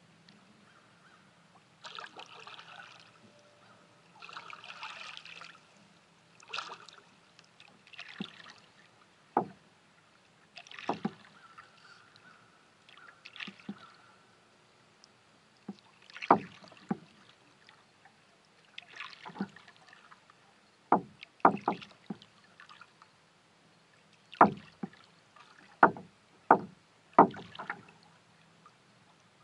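Kayak paddle strokes in calm lake water: separate splashes every second or two, with sharper taps and drips that come more often in the second half.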